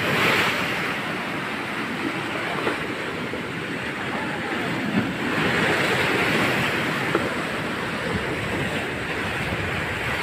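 Strong surf washing against a concrete seawall, swelling and easing twice, with some wind on the microphone and a couple of light clicks.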